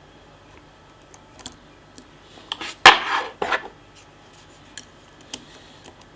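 Metal lock-picking tools working in a pin-tumbler challenge lock: scattered light clicks, with a short burst of metallic scraping and clinking about three seconds in.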